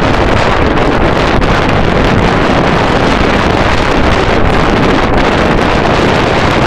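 Strong storm wind buffeting the camera's microphone in a whiteout: a loud, steady rush with a heavy low rumble.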